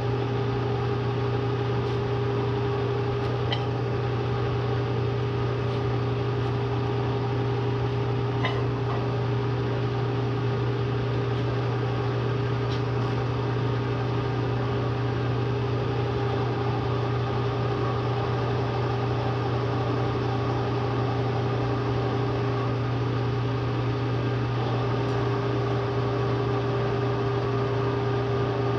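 Steady electrical hum of a rotary phase converter and the Bridgeport milling machine's three-phase motor running, without change.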